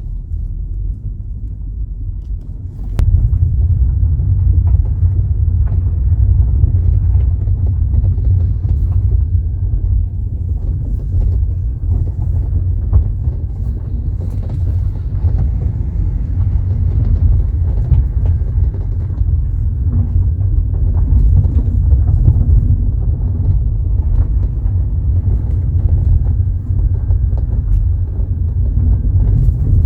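Low road and tyre rumble inside a 2021 VW Polo TSI's cabin, getting much louder about three seconds in as the car moves onto a rougher road. Scattered small clicks and creaks come from the doors as the body flexes, a rattle the owner says could be a quality issue or manufacturing defect.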